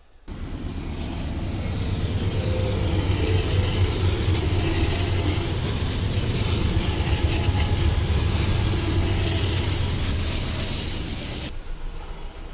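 BNSF diesel-electric freight locomotives passing close by, their engines running with a loud, deep rumble that drops away sharply about eleven and a half seconds in as the locomotives go past and the freight cars follow.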